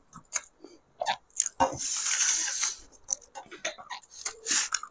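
A person eating spicy egg masala curry and rice: wet chewing and lip smacks heard as a run of short clicks, with a longer hiss for about a second, about two seconds in.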